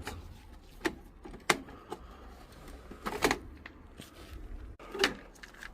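A few sharp plastic clicks and knocks as a plug-in timer module is handled and worked out of a boiler's control panel.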